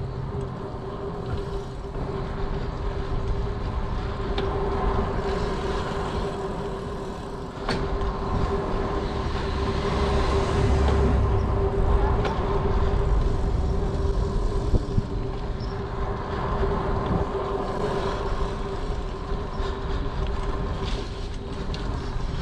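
Diamondback Overdrive hardtail mountain bike rolling on asphalt on WTB ThickSlick tyres: a steady hum from the tyres and drivetrain over rolling road noise, with low wind rumble on the microphone swelling midway and a couple of faint clicks.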